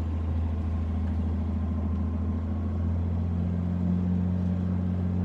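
Sailboat's inboard engine running steadily under way, a low, even drone.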